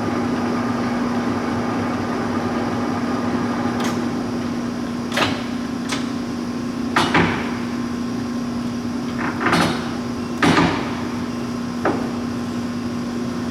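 Leblond Regal engine lathe running with a steady hum, broken by a series of sharp clunks and knocks as its spindle speed is changed from 27 toward 105 RPM.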